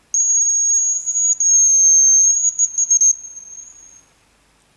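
Hazel grouse decoy whistle blown close by, imitating the hazel grouse's song: a long thin high whistle, a brief break, a second long whistle, then a few quick broken notes and a trailing note that fades out.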